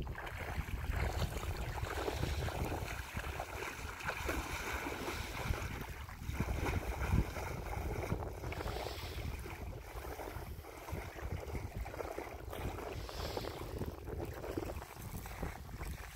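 Wind buffeting the microphone over small waves lapping at a lakeshore, a steady rushing noise with a low rumble, while a person wades into the shallow water.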